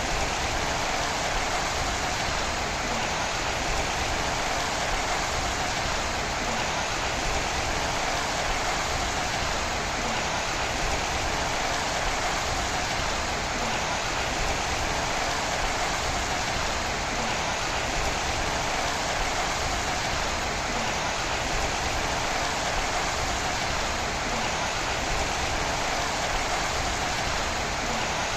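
Steady rainfall, an even, unbroken hiss of rain that neither swells nor eases.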